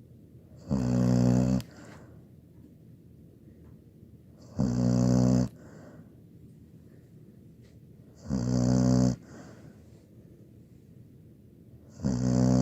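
A 17-year-old labradoodle snoring loudly: four snores evenly spaced about four seconds apart, each just under a second long, with soft breathing between them.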